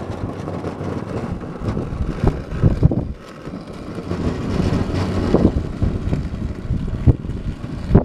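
Battery-powered DIY garden tractor ploughing snow with a front blade as it drives past and away, the blade scraping and pushing snow along the driveway, loudest around the middle. Wind buffets the microphone in irregular gusts throughout.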